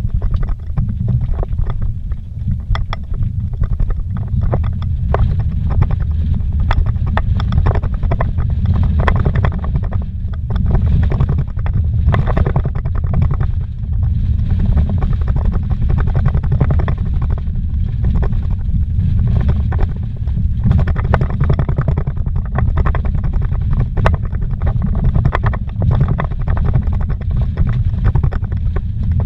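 Vehicle driving fast over a rough, rocky dirt road, heard from inside the cab: a steady low rumble of engine and tyres with constant rattles and knocks as it runs over stones and bumps.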